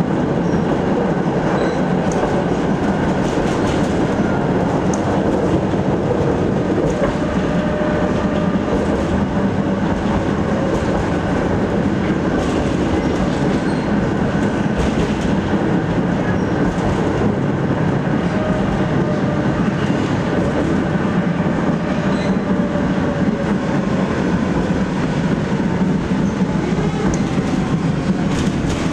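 Cabin sound of a ČKD Tatra KT8D5R.N2 tram under way: a steady rumble of steel wheels on rail with scattered clicks and clatter from the track. A faint motor whine sits underneath and slowly falls in pitch over the last several seconds.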